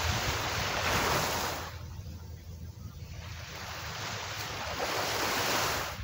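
Small waves washing up a sandy beach twice, each a hiss of foam that swells and fades, the second one longer.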